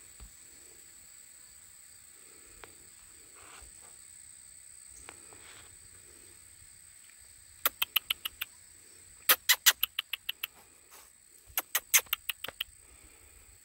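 Three quick runs of sharp clicks, seven to ten clicks each, starting about halfway in: the call-noise a man is making to teach his Anatolian Shepherd livestock guardian pups to come to him. A steady high insect drone runs underneath.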